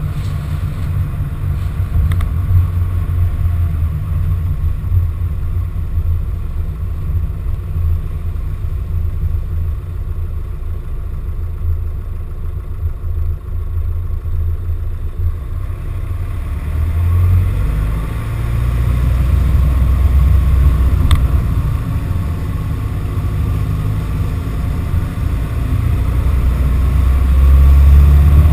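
Van driving along a flooded lane, heard through a GoPro mounted on the outside of the van: a continuous low-pitched running noise that gets louder about two-thirds of the way through.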